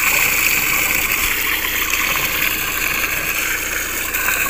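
Spring water pouring steadily from a metal pipe spout into a stone trough: a constant splashing rush.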